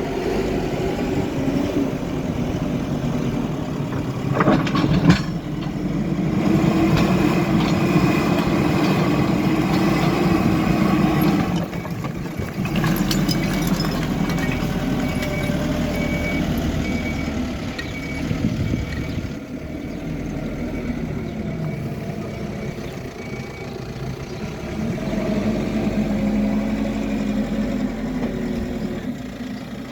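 Hidromek HMK 102S backhoe loader's diesel engine running and rising and falling in load as the machine works, with a few sharp knocks. A string of short, evenly spaced high beeps runs for about ten seconds in the middle.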